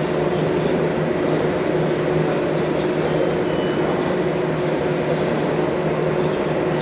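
Steady background hum of a large hall with a constant low drone, unchanging throughout, with no distinct knocks or clanks.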